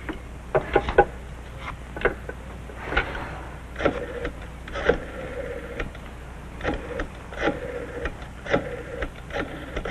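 Desk telephone handset set down and lifted again, then the rotary dial worked: a run of irregular mechanical clicks as numbers are dialled, with a faint steady tone underneath in the second half.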